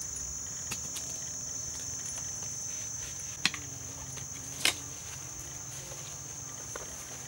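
Insects trilling steadily in one high, unbroken tone, broken by a few sharp knocks; the two loudest come about three and a half and four and a half seconds in.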